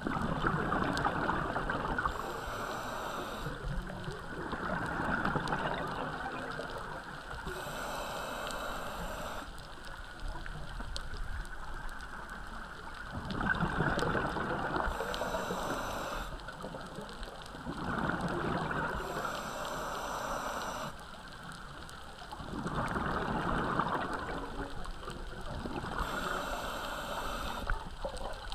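Scuba diver breathing through a regulator underwater: a short hissing inhale, then a longer gurgling burst of exhaled bubbles, repeating about every five seconds.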